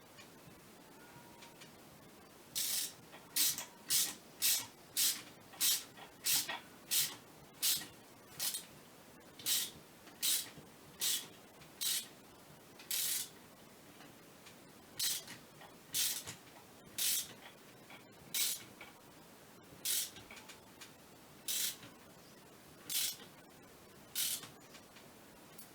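Ratchet wrench tightening bolts: a run of short rasps, one on each back-swing, quick and regular at first, then more spaced out.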